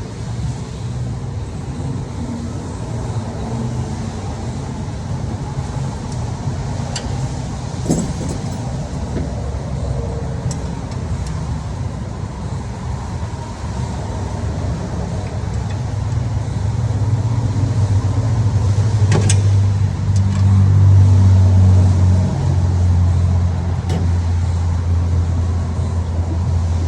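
Car engine running steadily, a low hum that grows louder about two-thirds of the way in, with a couple of sharp clicks.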